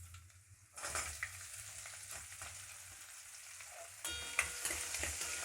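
Chopped onion, garlic and dried red chillies hitting hot oil in a kadai, breaking into a sudden loud sizzle about a second in. The crackling sizzle steps up again near the end, with sharp clicks as the spatula stirs.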